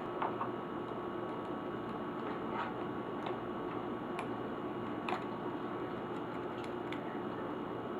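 Light, irregular clicks and taps, as laptop screws and plastic parts are handled during disassembly, about eight in all, the loudest about five seconds in. Under them runs a steady background hum and hiss.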